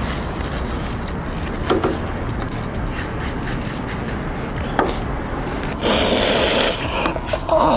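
A plastic bag and a hand rubbing and scraping on cardboard over a wooden table, with a couple of light knocks. About six seconds in comes a louder rushing hiss lasting about a second.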